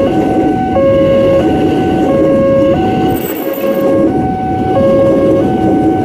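Railroad crossing alarm sounding a two-tone alternating signal, the lower and higher tones taking turns about every two-thirds of a second, over the steady rumble of a commuter train passing over the crossing.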